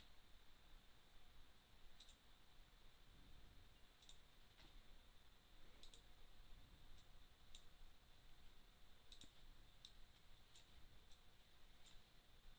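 Faint computer mouse clicks, about a dozen, spaced irregularly over low room tone.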